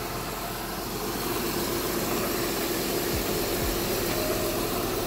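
2007 Honda Odyssey's 3.5-litre V6 engine idling steadily with the hood open.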